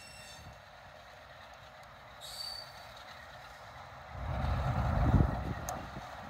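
Train of vans rolling across a railway girder bridge, heard at a distance: a faint even rolling noise with a brief high wheel squeal about two seconds in. From about four seconds in, a louder, uneven low rumble takes over.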